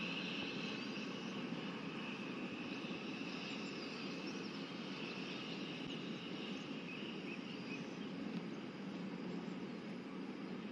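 Steady outdoor background noise: a low, even rumble under a steady high hum, with a few faint short chirps.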